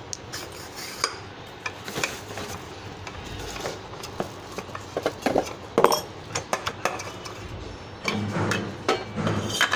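Hard clinks and knocks of submersible pump parts being handled and fitted onto the pump shaft as the next impeller-and-bowl stage is stacked. The knocks come irregularly, with a busier stretch of handling near the end.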